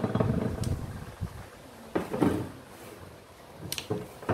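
Metal scooter centrifugal clutch assemblies knocking and clicking as they are picked up and set down on a wooden workbench: one knock about two seconds in, then a few light clicks and a sharper knock near the end.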